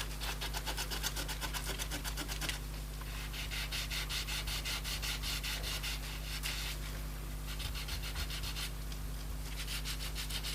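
Quick, regular back-and-forth rubbing on the iPad 2's frame, scrubbing sticky adhesive residue with isopropanol. The rubbing comes in spells with brief pauses.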